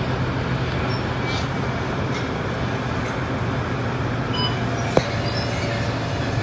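Steady engine drone and cabin noise heard from inside a Scania Kurb Euro 4 city bus under way, with one sharp click about five seconds in.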